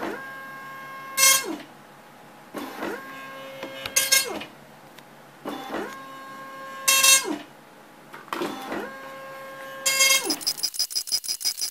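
Panasonic KX-P1524 24-pin wide-carriage dot-matrix printer printing a banner. About every three seconds the print-head carriage sweeps across with a motor whine that rises and then falls, and the pins fire in a loud buzzing burst, four passes in all.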